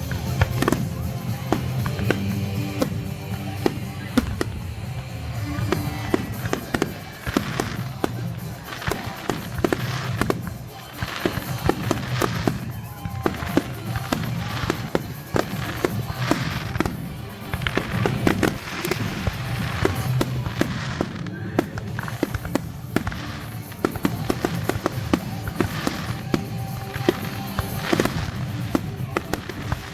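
Fireworks display: many bangs and crackles going off in quick succession, with a short lull about eleven seconds in. Music plays underneath.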